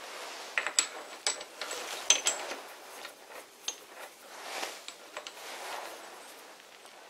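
Sharp metal clicks and clinks, several in quick succession about a second into the sound and one more a little later, as a steel centre is fitted into a three-jaw lathe chuck and tightened with a T-handle chuck key, with the lathe stopped.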